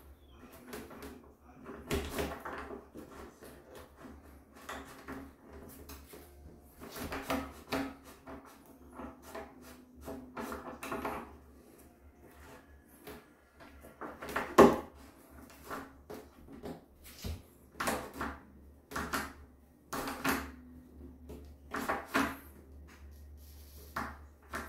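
Irregular metallic clicks, rattles and knocks of a brass tubular door latch being worked by hand and with a screwdriver as it is pried at in the door; one sharp knock about midway is the loudest.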